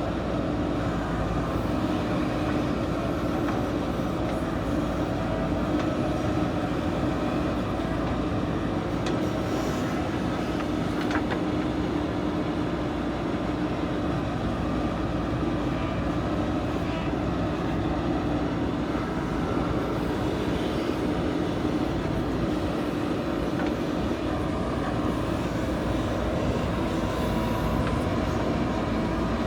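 JCB backhoe loader's diesel engine running steadily while it works, a constant drone with no let-up.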